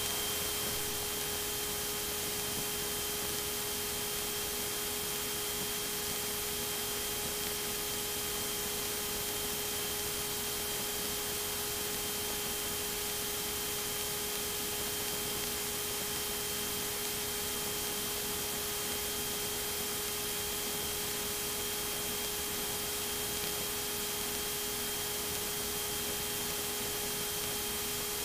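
Steady static hiss with a faint constant hum and a thin high whine on a light aircraft's intercom/radio audio feed while no one is transmitting.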